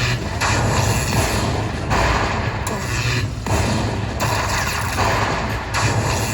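Slot machine bonus-game sound effects: a loud, dense run of booming effects over a steady low hum, coming in surges that break off every second or so.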